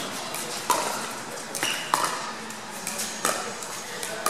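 Pickleball paddles striking the hollow plastic ball in a doubles rally: a series of sharp pops, about five of them roughly a second apart.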